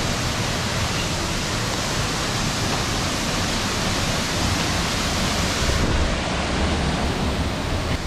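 Steady rushing of a waterfall pouring into a rock pool.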